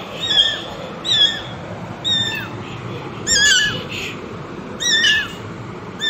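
Kittens squeaking and mewing while play-fighting: six short, high-pitched, wavering cries at roughly one-second intervals.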